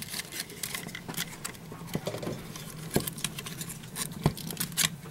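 Handling noise as twisted insulated wires are pushed through the toroid on the back of a plastic ELCI breaker unit: scattered small clicks, taps and rustles, with two firmer knocks about three and four seconds in.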